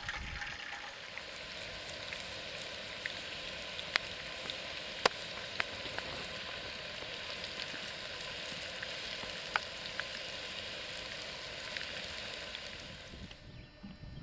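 Northern pike fillets sizzling as they cook, a steady sizzle with a few sharp pops and crackles; the sizzle fades out shortly before the end.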